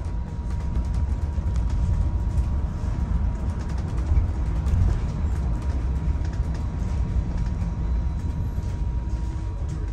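Bus running along the road, heard from inside the passenger saloon: a steady low rumble of engine and road noise, with a faint steady whine above it.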